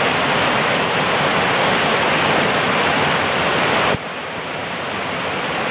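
Creek water rushing and cascading over rocks in a steady, dense roar of white water. About four seconds in the level drops suddenly, then slowly builds back up.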